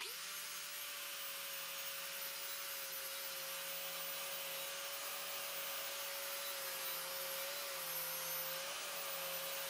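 Angle grinder with a flap disc grinding the edge of a steel blank clamped in a vise: a steady motor whine over a grinding hiss. The pitch dips slightly a few times near the end as the disc bites into the metal.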